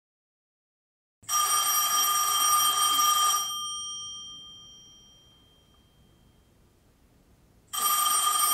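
Telephone bell ringing twice: a ring of about two seconds that fades away slowly, then a second ring starting near the end.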